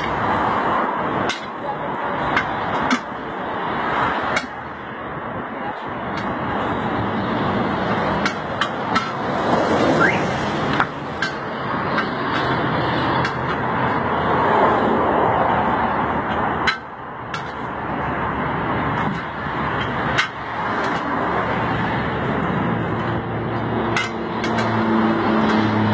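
Scattered sharp metal knocks and clanks from tire-repair work, over a steady background noise.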